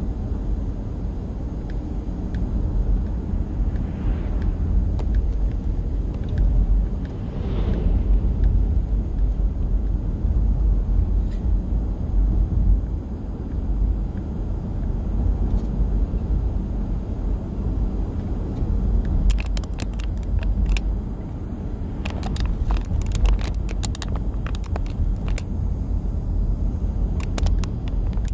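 Steady low rumble of a car driving along a rough asphalt road, the engine and tyre noise heard from inside the cabin. A series of sharp clicks comes in over the rumble in the second half.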